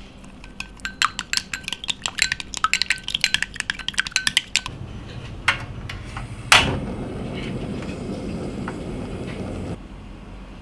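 Eggs being beaten in a glass bowl: a fast run of light clinks lasting about four and a half seconds. Then a portable gas stove's igniter gives one sharp click, and the lit burner hisses steadily for about three seconds.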